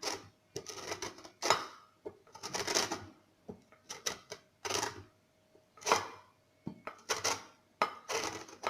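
Lemon rind being grated on a fine hand grater: a series of short scraping strokes, roughly one a second, taking off only the yellow outer zest.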